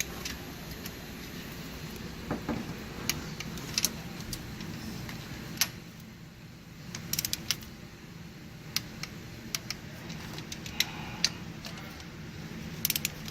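Hand tools and metal engine parts clinking and clicking now and then, with a quick run of clicks about seven seconds in and again near the end, over a steady low hum.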